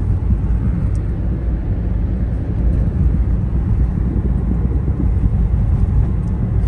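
Steady low rumble of road and engine noise heard inside a car's cabin while it is driven along a highway.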